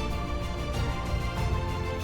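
Background music: a sustained, dense orchestral-style score with no speech.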